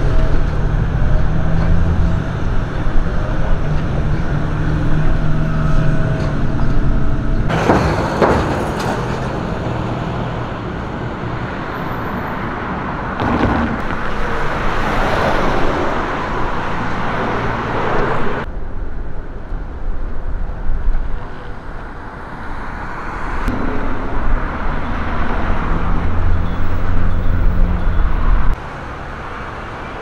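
Road traffic: cars passing by with a whoosh about eight seconds in and again, longer, around fifteen seconds, over a steady low rumble that drops away suddenly near the end.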